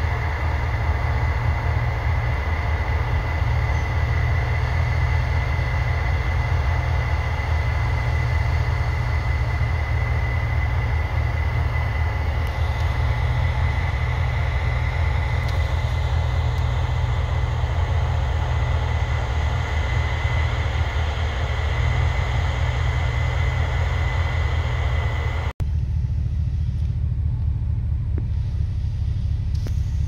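Case IH 9240 track combine running while it harvests corn: a steady low engine rumble with a steady high whine over it. About 25 seconds in, it changes abruptly to a duller low rumble, a tractor-drawn grain cart unloading corn into a semi trailer.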